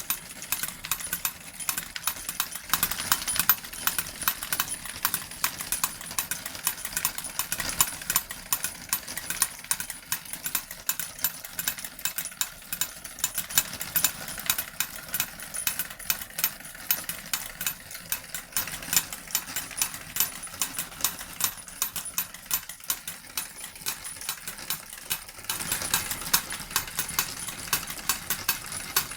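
A D21 model steam engine running and driving two small model forging hammers. The hammers clatter in a rapid, fairly even run of clicks over a steady hiss, and the hiss gets a little stronger near the end.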